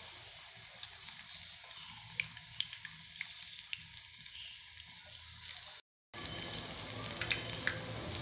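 Raw featherback-fish (foli) patties sizzling in hot oil in a frying pan: a steady hiss with small spitting crackles. The sound cuts out completely for a moment about six seconds in, then the sizzling resumes.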